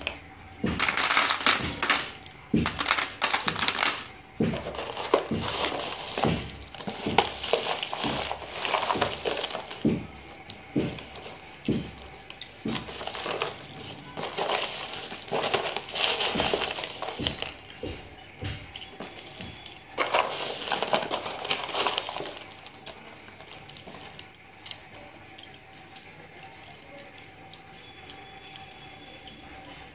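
Slate pencils rattling and clinking against one another in bursts as a hand stirs and scoops through a box of them. After about twenty-three seconds it thins to quieter, scattered clicks.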